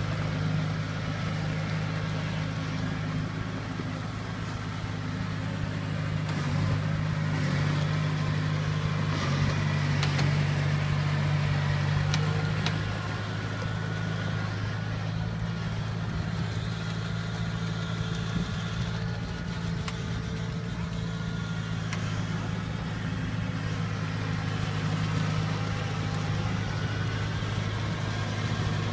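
Kubota tracked combine harvester's diesel engine running steadily as the machine drives across wet ground.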